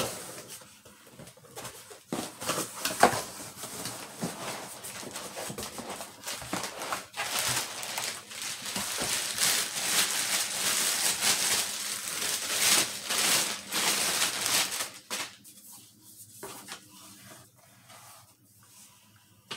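Cardboard box being opened and handled, with scattered knocks and scrapes, then a clear plastic bag crinkling for several seconds as a rifle is drawn out of it; quieter handling near the end.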